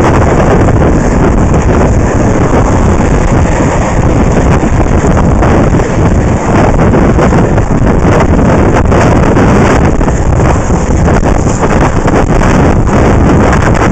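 Loud, steady wind buffeting on the microphone of a camera carried by an inline skater moving at speed, mixed with the rumble of skate wheels rolling on asphalt.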